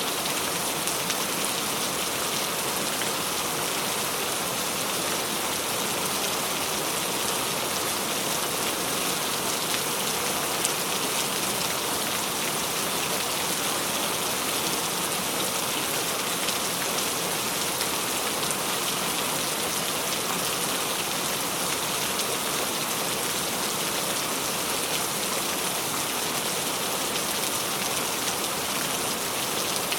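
Steady rain falling on a surface: a constant, even hiss of many drops with faint scattered drop ticks.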